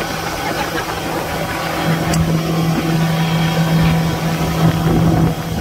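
Yamaha 115 outboard motor driving a small boat at cruising speed, a steady drone that grows louder about two seconds in, over a rush of wind and wake water.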